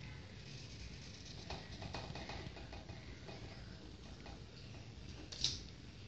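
Hobby servo motors of a small desktop robot arm moving, with scattered faint ticks and clicks and one sharper click about five seconds in.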